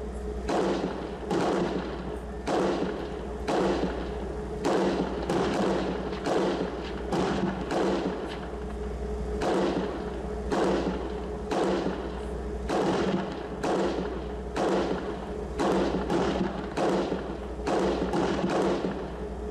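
Sustained irregular gunfire, sharp shots about one to two a second, each with a short echo, over the steady hum of an engine.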